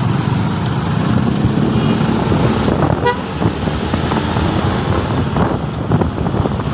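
Motorcycle running at road speed with steady engine and road noise, and a single short horn toot about three seconds in.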